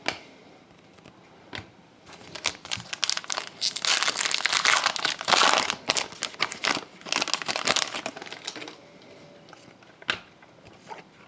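Trading-card pack wrapper crinkling and tearing as a pack is opened, a dense rustling that starts about two seconds in, is loudest in the middle and dies away near the end.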